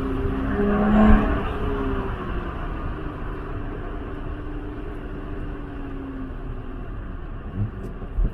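A race car's engine running at steady revs and slowly fading away, its pitch sinking gradually, with a brief louder swell about a second in.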